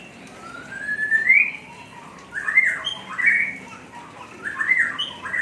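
Oriental magpie-robin (kacer) singing in its rough, chattering 'ngeriwik' style: one long rising whistle, then three bursts of quick upswept notes.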